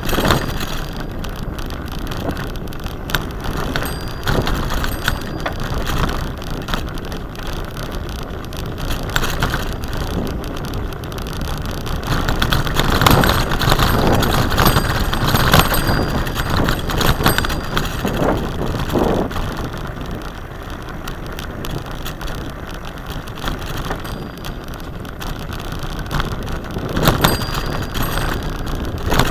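Bicycle rolling over a rutted dirt track, its tyres on the rough ground and a constant run of small knocks and rattles from the bumps, louder for a few seconds in the middle.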